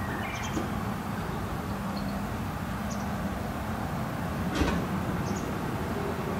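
Outdoor background: a steady low rumble with a few faint, short high chirps, and one sharp knock about four and a half seconds in.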